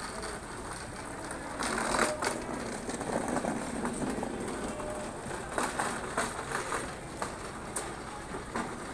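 Busy market-street noise: a steady rumbling wash with many small clicks and clatters, swelling louder for most of the middle of the stretch.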